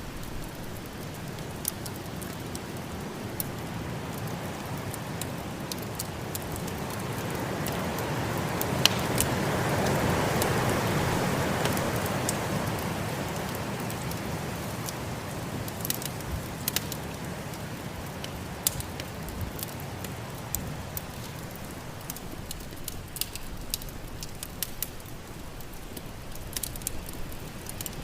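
Wood fire crackling with scattered sharp pops, over a steady snowstorm wind that swells in a long gust near the middle and then eases.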